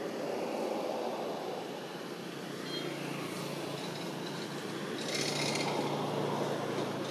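Steady outdoor background noise with a low motor hum that comes in about three seconds in and grows louder about two seconds later. There is a brief higher rustling sound about five seconds in.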